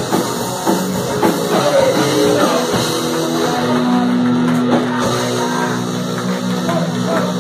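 Oi! punk band playing live: electric guitar and drum kit, loud, with notes held steady through the second half.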